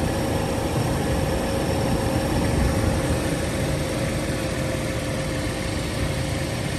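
Car engine idling steadily: a low rumble with a steady whine over it.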